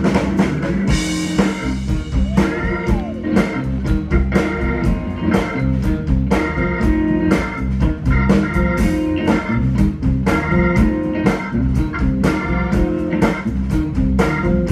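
Live blues band playing an instrumental: guitar over a drum kit keeping a steady beat.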